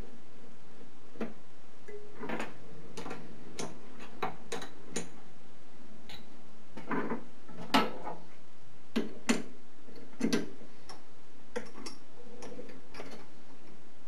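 Irregular metallic clicks and knocks of metal tools and parts being handled on a mini metal lathe, about fifteen in all, unevenly spaced, the sharpest about 8 seconds in.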